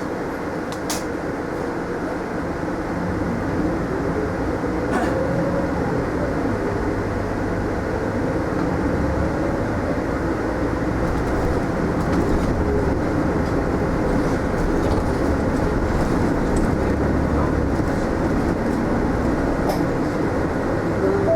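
Mitsubishi Fuso Aerostar city bus heard from inside the cabin, pulling away from a stop. Engine and drivetrain noise builds gradually as it gathers speed, with a whine rising in pitch over the first few seconds and a couple of brief clicks.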